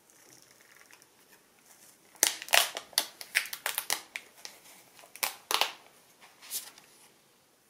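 Protective plastic film and wrap being peeled off a foldable phone, crackling and crinkling in a dense run of sharp crackles from about two seconds in, then a few more near the end.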